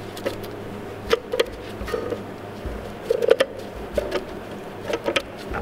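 Scattered metal clicks and taps as a clutch compression tool is threaded into and tightened on a clutch pressure plate, compressing its diaphragm spring, over a steady low hum.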